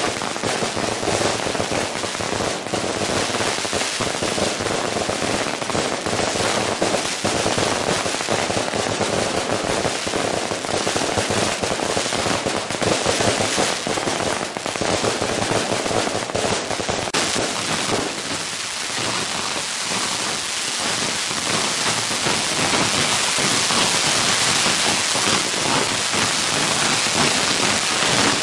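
A long string of firecrackers going off in dense, rapid, unbroken crackling. The bangs run so close together that, over the last third, they merge into an even, rain-like hiss.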